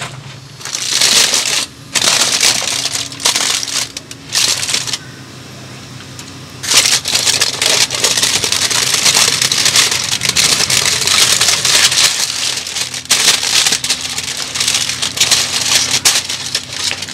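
Aluminum foil pack crinkling and crackling as it is pulled open and a spatula scoops fries out of it. The rustling comes and goes, with a quieter spell of about two seconds near the middle.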